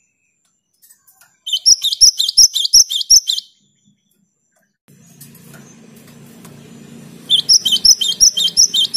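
Cinereous tit (gelatik batu) singing two bouts of rapid, evenly repeated high notes, about five a second, with a pause of a few seconds between them.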